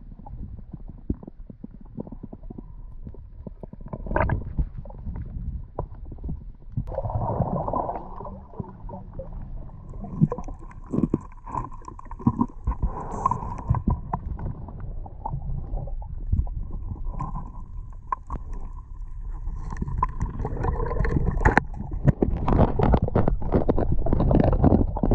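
Underwater sound through an action camera's housing on a shallow reef: a muffled low rumble of moving water with scattered clicks and crackles. From about 20 seconds in it gets louder, with a dense run of knocks and scrapes.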